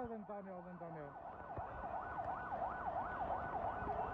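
Emergency vehicle siren on a fast yelp, its pitch sweeping up and down about four times a second and continuing steadily. A voice trails off, falling in pitch, over the first second.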